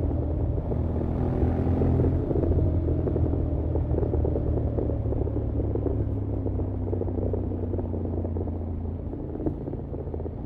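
Honda X-ADV 750's parallel-twin engine and exhaust under way, its note falling slowly as the bike slows down.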